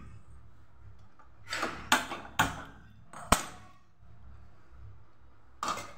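Sharp metal knocks and clicks, about five in two seconds and one more near the end, as an aluminium pressure cooker is set on a gas stove and handled.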